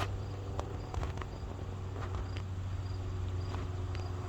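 Crickets chirping in short, evenly repeated pulses over a low steady hum, with several sharp clicks and taps from the camera being handled.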